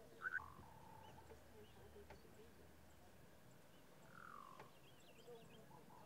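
Faint wild animal calls over a quiet background: a sharp double call just after the start, a whistle falling in pitch about four seconds in, and scattered high chirps.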